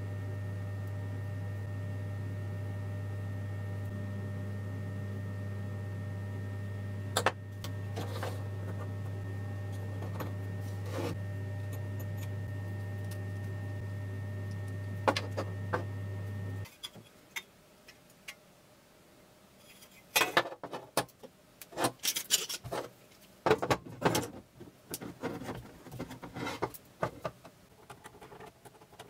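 A steady low hum runs for about the first two-thirds and cuts off abruptly, with a few sharp clicks over it. Then comes a quieter stretch of clicks, taps and scrapes: small metal parts being handled and a small wooden-handled screwdriver turning screws into an aluminium bar.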